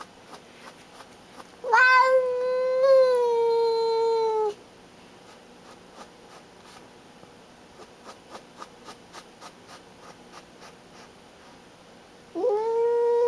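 Domestic cat yowling, a long drawn-out caterwaul that starts about two seconds in, lasts nearly three seconds and sags slightly in pitch, with a second long yowl starting near the end. It is a territorial warning at a rival cat on the other side of a glass door.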